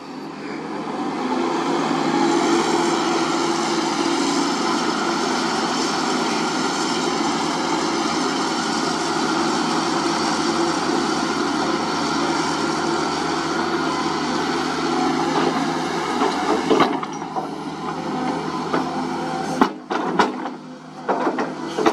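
Sunward SWE210 crawler excavator's diesel engine and hydraulics working under load as it digs and moves. A steady machine sound builds over the first two seconds and drops back about seventeen seconds in, followed by a few sharp knocks near the end.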